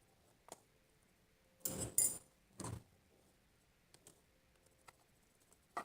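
Handling noises of a utensil and container while slime ingredients are added and mixed: a short click, then two louder scraping clatters about two and nearly three seconds in, and a few light clicks near the end.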